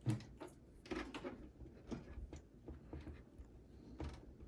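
Scattered clicks and knocks of hands handling SATA cables and connectors inside a desktop PC case, the loudest knock right at the start.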